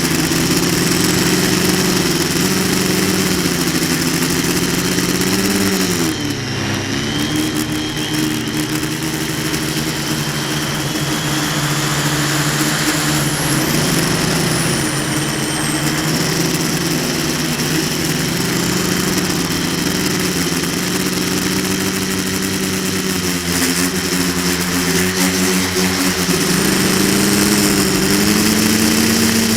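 Quadcopter's electric motors and propellers humming loudly as picked up by the camera riding on the craft, the pitch wavering up and down with throttle changes. About six seconds in, the pitch drops sharply and then climbs back.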